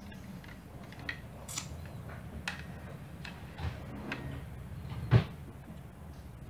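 Small clicks and taps from handling a 1:32 scale diecast Mercedes-Benz G500 model as its opening doors are worked, with one sharper knock a little after five seconds in, over a low steady hum.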